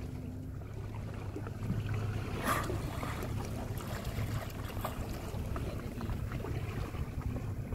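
Boat engine running steadily at idle with water sloshing around the hull, and a short splash about two and a half seconds in.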